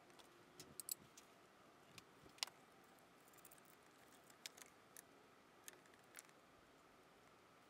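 Faint, scattered metallic clicks and ticks of a hand wrench and bolts as the water pump bolts are worked loose, the loudest about one and two and a half seconds in.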